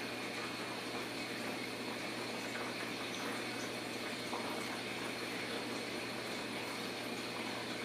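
Steady rushing background noise with a low steady hum underneath.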